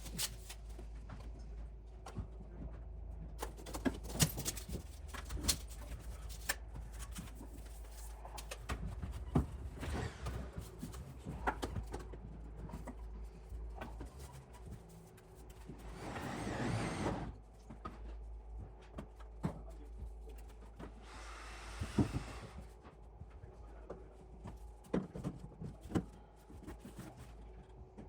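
Construction work sounds: scattered knocks and clicks of pipe and tools being handled, with two short rasping noises, the louder one a little past halfway and a fainter one a few seconds later, over a steady low hum.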